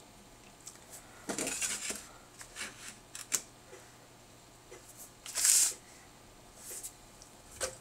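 Small handling noises from hand work on a dental model: short rustles and a few light clicks. The loudest rustle comes about five and a half seconds in.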